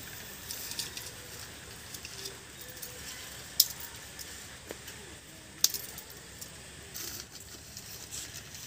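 Thin dry twigs being broken and laid into a mud cooking stove: light rustling and ticking, with two sharp snaps about three and a half and five and a half seconds in, and light clinking of bangles.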